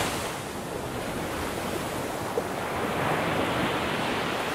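Ocean waves: a steady rushing wash of surf.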